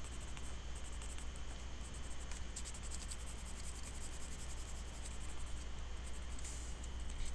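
Colored pencil scratching back and forth on sketchbook paper in many quick short strokes while shading in an area, over a steady low hum.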